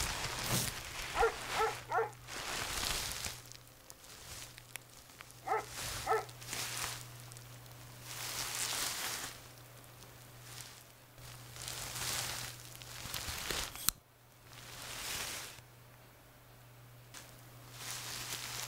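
Repeated heavy breaths with a few short, pitched whimpers, over a steady low hum.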